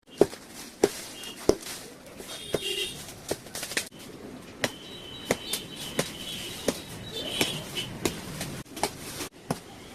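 Repeated sharp chopping blows on wood, about one every half to two-thirds of a second, in a steady working rhythm.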